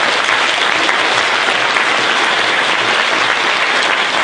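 Audience applauding: loud, steady clapping from a roomful of people.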